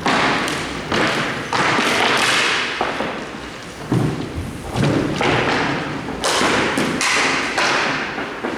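Hockey play: a string of about a dozen heavy thuds and knocks at irregular intervals, several of them a second apart or closer. Many are followed by a short scraping hiss.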